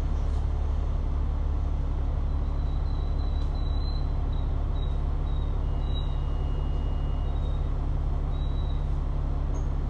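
Kowloon Motor Bus engine and running noise heard from inside the bus while it drives: a steady low drone.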